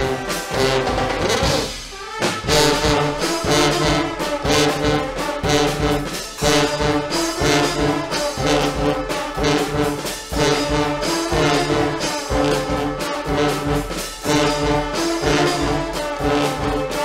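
Guggenmusik band playing loudly: a full brass section of trumpets and trombones over a steady drum beat. The band breaks off briefly about two seconds in, then comes back in together.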